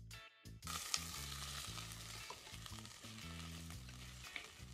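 Small onions sizzling as they fry in a clay pot, stirred with a metal spoon; the sizzle starts about half a second in. A music track with a steady bass line plays underneath.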